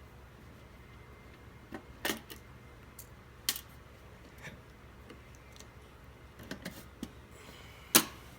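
Scattered sharp clicks and knocks of parts being handled while an LCD TV is taken apart, a few at a time with gaps between, the loudest one near the end.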